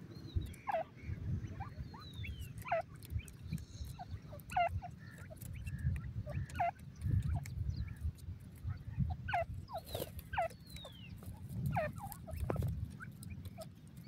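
Francolin chicks calling: short peeps that drop sharply in pitch, repeated irregularly every second or two, over a low rumble.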